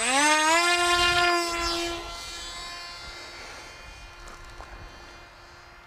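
Electric motor and propeller of a ZOHD Talon GT RC plane spooling up to full throttle for a hand launch: a rising whine that settles into a steady high-pitched note. About two seconds in it turns quieter while holding the same pitch.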